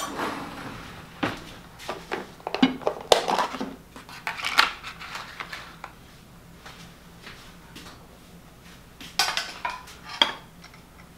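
Tableware clinking and knocking as dishes and a metal saucepan are set out on a wooden table: scattered clatters, busiest a couple of seconds in and again about nine to ten seconds in.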